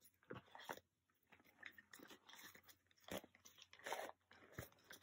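Faint crinkling and rustling of plastic binder sleeve pages being handled and turned, in short irregular bursts.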